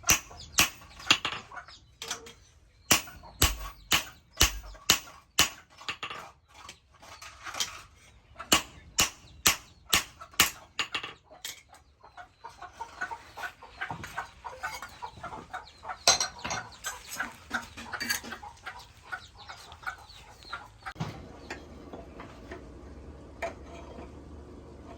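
Hand hammer striking leaf-spring steel, sharp blows about two a second for roughly the first half. After that come quieter, busier small clattering sounds, and a low steady hum near the end.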